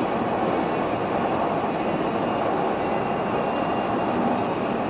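Steady road and tyre noise inside a car cabin while driving at highway speed.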